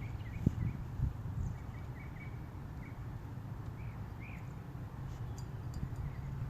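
Faint short bird chirps over a steady low rumble, with a sharp click about half a second in and a knock about a second in.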